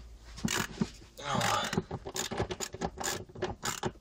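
Small ratchet with a 10 mm socket turning out a loosened seat-rail bolt: a run of irregular pawl clicks. A short voice sound comes about a second and a half in.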